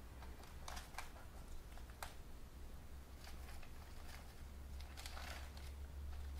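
Faint, scattered clicks and rustles of a rat and a mouse scrabbling through the seed, pellet and straw mix on the cage floor, a cluster around a second in and another near five seconds.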